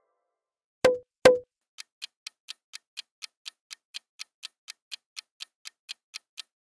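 Quiz countdown timer sound effect: two sharp clicks, then steady clock-like ticking at about four ticks a second while the answer time runs.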